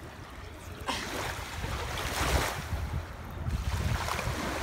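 Surf washing up the beach, with wind rumbling on the microphone. Swells of hiss come about a second in and again a little past two seconds.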